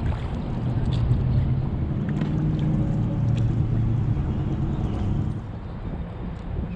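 A motor's steady low drone that drops off about five seconds in.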